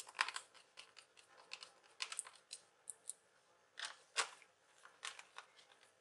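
Irregular light clicks and scrapes of a small screw and fingers handling the plastic underside of a laptop.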